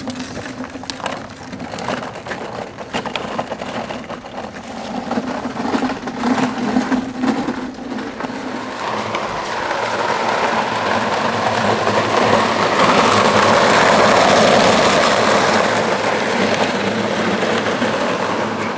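Small hard-wheeled, unpowered go-kart rolling over rough, gravelly tarmac. At first there are scattered clicks and scuffs; from about nine seconds in, the rumble of its wheels grows louder, peaks, and eases slightly near the end.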